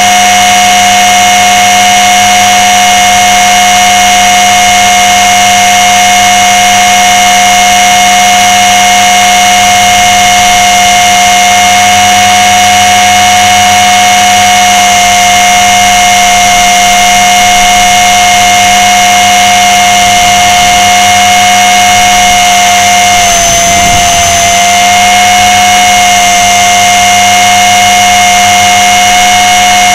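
Blade 300 X electric RC helicopter's brushless motor and rotor head whining steadily and loudly in flight, heard right up close from the camera mounted under it. The pitch dips briefly about 24 seconds in, then recovers.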